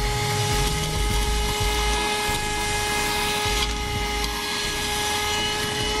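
Vorolly corded handheld car vacuum cleaner running and sucking dirt off a rubber floor mat: a steady motor whine over the rush of air, with low rumbles coming and going in the first few seconds.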